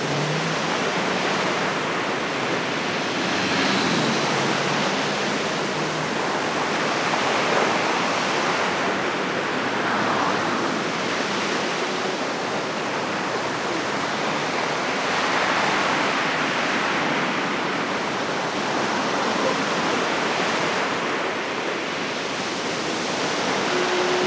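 Steady rushing noise across the whole range, swelling and easing slightly every few seconds.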